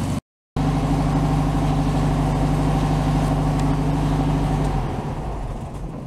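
1964 Volkswagen Beetle's air-cooled 1500cc flat-four engine idling steadily, with its leaking vacuum advance lines replaced. There is a brief silent gap just after the start, and the engine sound stops and fades near the end.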